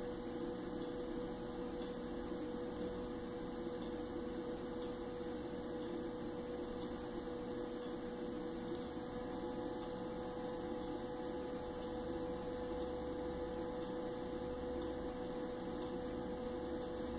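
Steady background hum with one constant held tone and no other sound.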